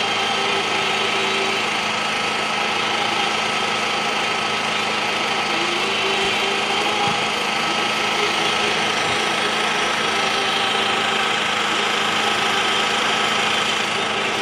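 A steady engine hum, even in level throughout.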